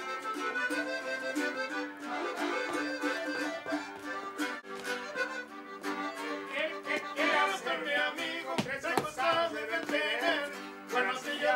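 Music led by an accordion: sustained chords, with a wavering melody running above them from about halfway in.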